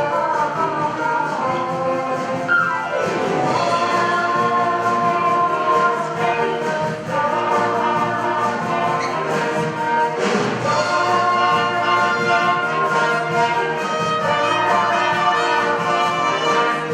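Instrumental music with orchestral brass, with sliding pitch sweeps about three seconds in and again around ten seconds in.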